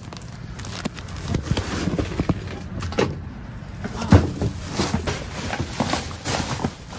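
Items being moved and rummaged through in a dumpster: rustling and a run of short knocks and clatter, with one louder knock about four seconds in, over a steady low hum.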